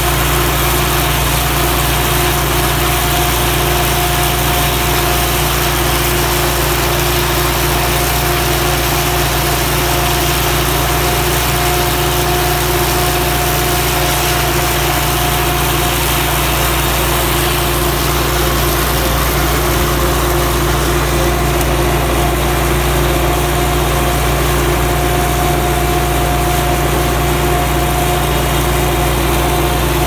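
Belarus MTZ-82 tractor's diesel engine running steadily at a constant speed, loud and even throughout, with a steady whine on top that drops out and returns a few times.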